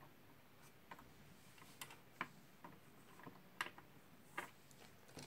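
Faint, scattered clicks and ticks of fingers turning the spring-loaded mounting screws and thumb nuts of a CPU water block: about half a dozen irregular small metal clicks, with slightly sharper ones about two, three and a half and four and a half seconds in.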